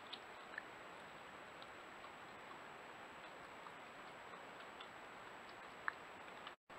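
Faint scattered ticks and small clicks from a European badger rooting about in wood chips by a log, with one sharper click about six seconds in. Under them runs the trail camera microphone's steady hiss, which cuts out for a moment just before the end.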